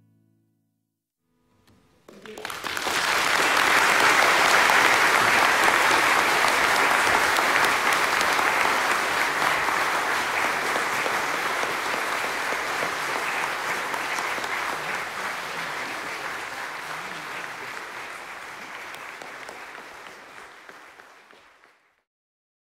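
Audience applauding: the clapping starts about two seconds in, swells quickly to full strength, then slowly dies away and stops just before the end.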